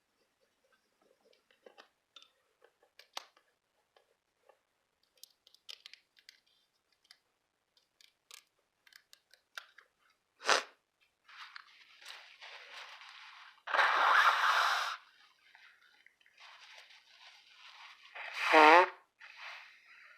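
Paper and sticker sheets being handled: light crinkles and clicks, then rustling and tearing as paper is peeled or torn, loudest about two-thirds of the way in. A cat meows once near the end.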